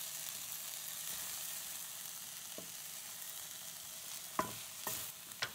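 Onion, tomato, coconut and coriander leaves sizzling steadily in oil in a pan as a wooden spoon stirs them. A few sharp knocks of the spoon against the pan come in the second half, the last three close together near the end.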